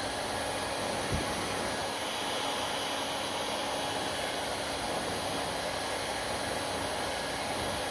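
Hair dryer blowing steadily, an even rushing hiss with a faint hum. A brief low bump comes about a second in.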